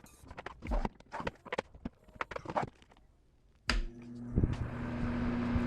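Clicks and knocks as the Honeywell fan is handled. About two-thirds of the way through it switches on: a steady hum from its motor coil, and a growing rush of air as the blades spin up.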